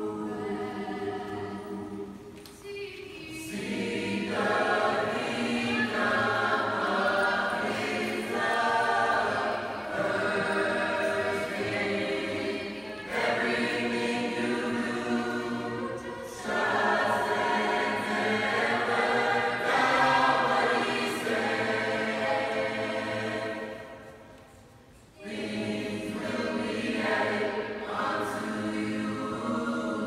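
Mixed-voice school choir singing in a large church, in long held phrases, with a short break near the end before the voices come in again.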